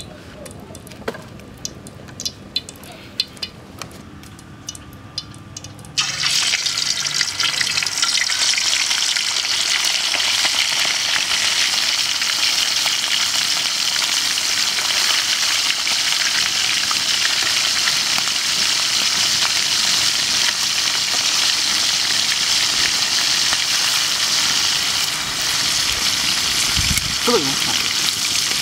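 Pork chop pieces deep-frying in hot oil in a metal wok: a loud, steady sizzle that starts suddenly about six seconds in, after a few light clicks. A low thump comes near the end.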